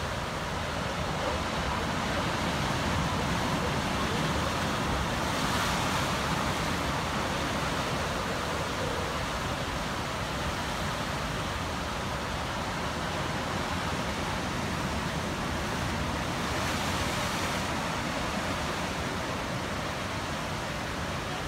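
Surf washing in and breaking over shoreline rocks, a steady rush of water that swells louder twice.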